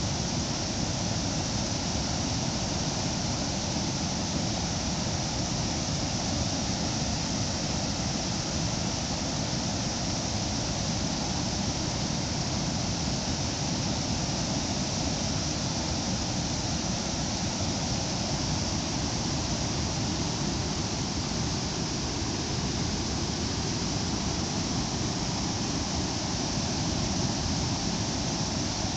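Waterfall: falling water rushing in a steady, even hiss with no breaks.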